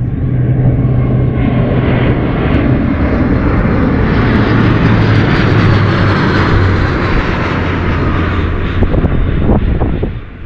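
Airplane passing close by: loud, steady engine noise whose low tone drops in pitch about halfway through as it goes past, then fades near the end.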